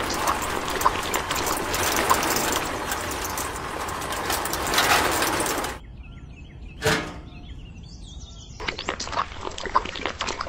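Wet cement pouring and sliding from a miniature cement mixer's tipped drum, a steady rushing noise with scattered clicks that cuts off suddenly. It is followed by one short whoosh, faint bird chirps, and then small scraping clicks as cement is tipped from a small metal bucket around a model pole.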